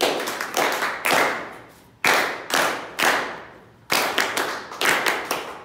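A small congregation applauding with scattered, uneven hand claps. Each clap echoes and fades in the church.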